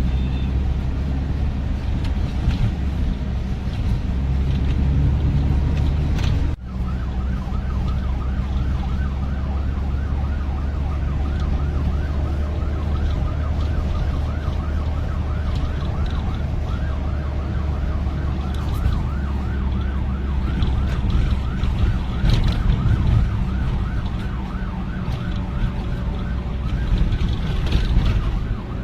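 Vietnamese traffic police siren with a rapid warble, heard over a heavy low rumble of vehicle engines. The sound breaks off suddenly about six and a half seconds in, and the warble fades out near the end.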